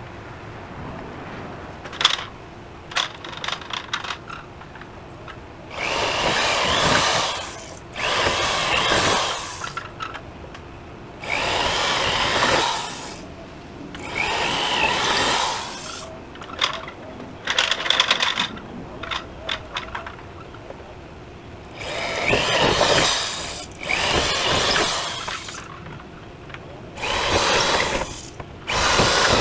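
Power drill boring holes through a door's two sheet-metal skins and insulation core. It runs in about seven bursts of a second or two, some with a rising whine, with short stuttering trigger pulses between them.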